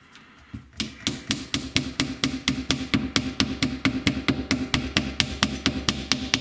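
Small hammer tapping rapidly on a small wooden block, about five or six even taps a second, starting about a second in after a short pause. The taps seat the first turns of wire and cable tight against the plexiglass disc of a coil-winding jig.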